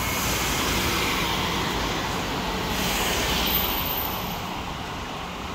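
Road traffic on a town street: cars driving past with tyre and engine noise, swelling twice as vehicles go by.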